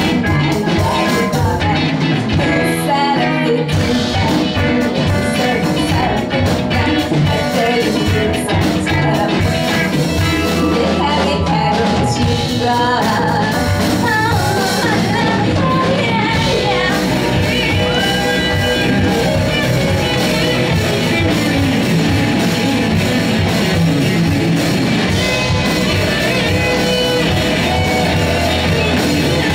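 Live rock band playing a song: a woman singing lead over electric guitars, bass guitar, drum kit and keyboards, amplified through the stage rig.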